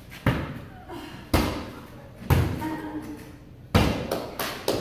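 Inflatable beach ball slapped back and forth by hand, a sharp hollow thump roughly once a second, five strong hits with a few lighter taps between, each echoing briefly in a large hall.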